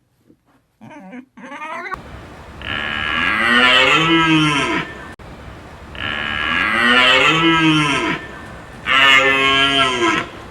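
Cow mooing three times: long, loud calls that rise and fall in pitch, the last one shorter. A few faint short calls come in the first two seconds.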